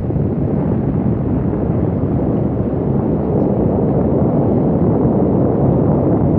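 Wind buffeting the microphone: a loud, steady low rumble with no clear engine tone in it.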